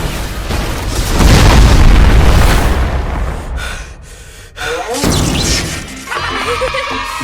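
A loud, deep boom that swells about a second in and rumbles for a couple of seconds before dying away, with music underneath.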